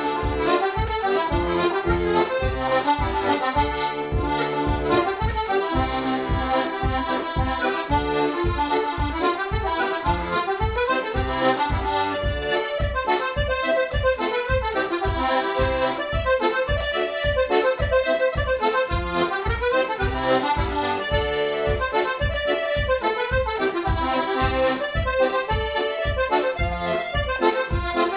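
Vintage Paolo Soprani 'Pepperpot' two-row button accordion playing a fast traditional Irish reel: a quick, continuous right-hand melody over a steady, even pulse of left-hand bass and chords.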